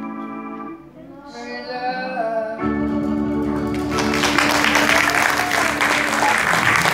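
A woman sings the last line of a song over keyboard accompaniment, ending on a long held organ-like chord about two and a half seconds in. About a second later audience applause breaks out and is the loudest sound to the end.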